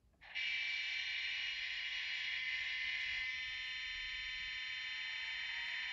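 Diesel-locomotive engine sound from a Märklin sound decoder played through a small speaker in an H0 Brawa BR 232 'Ludmilla' model. It switches on abruptly and runs steadily with a thin, buzzing tone and no low end: the small speaker cannot give the dull, deep note of the real Ludmilla.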